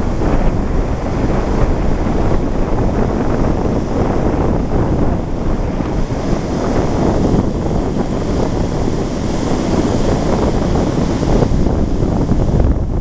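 Sea surf breaking on a sandy beach, mixed with wind buffeting the microphone in a steady, loud rush.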